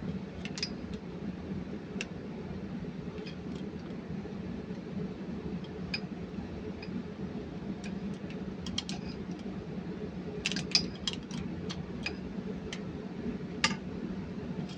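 Scattered light metallic clicks and taps of tools and metal parts being handled on the engine as a pipe clamp is fitted, with a quick run of clicks about ten and a half seconds in and a sharp click near the end, over a steady low hum.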